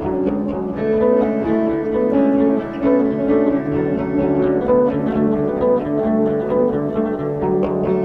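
Instrumental passage of a song, led by plucked guitar notes over a steady bed of sustained tones, with no singing.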